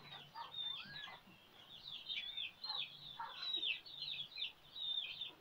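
Newborn kittens mewing in thin, high squeaks, many short calls a few per second, as they huddle and nurse against their mother.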